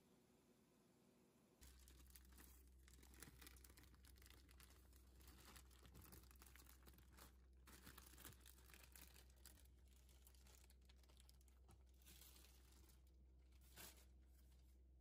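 Near silence with faint crackling and rustling over a low hum, starting about two seconds in.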